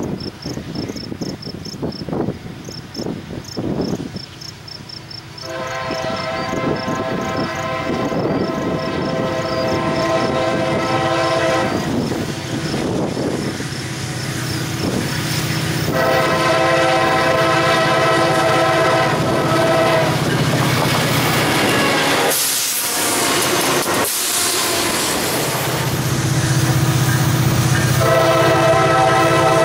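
Approaching EMD SD40-2 freight locomotive's multi-chime air horn blowing long blasts for a grade crossing, over the rumble of the train; crickets chirp faintly before the horn starts, about five seconds in. After a sudden break a little past the twenty-second mark, a second approaching freight locomotive's horn sounds near the end.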